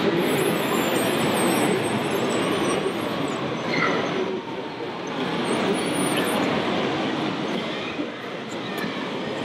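Radio-controlled model wheel loader working, its electric drive and hydraulic pump giving a high, wavering whine in the first three seconds and again around six seconds in. Underneath runs a steady, even din.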